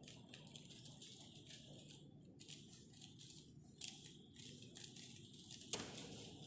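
Plastic 3x3 speed cube being turned quickly by hand: a fast, faint clatter of small clicks as the layers turn. Near the end comes a sharper knock as the cube is put down on the table.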